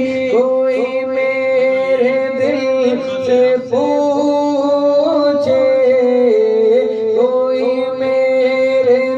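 Men singing a naat, a devotional song in praise of the Prophet Muhammad, with long held notes that step from one pitch to the next.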